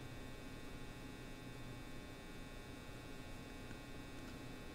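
Faint steady electrical hum over a low hiss: quiet room tone, with no distinct sound events.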